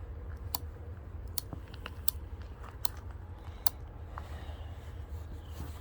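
A series of small sharp clicks, about five, spaced a little under a second apart, over a low steady rumble.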